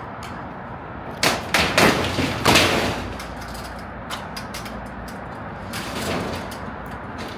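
Shade-structure panels being pulled and knocked loose: a quick run of loud bangs and rattling scrapes a little over a second in, then a quieter clatter near six seconds.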